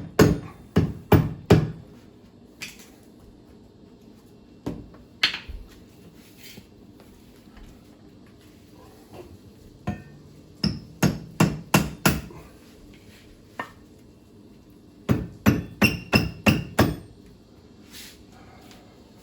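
Rubber mallet tapping on stern-drive parts, in quick runs of five to seven blows with a few single knocks and short pauses between.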